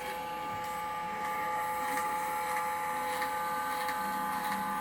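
A repaired Yellow Octopus machine running with a steady motor whine and scattered light ticks, running smoothly after the repair.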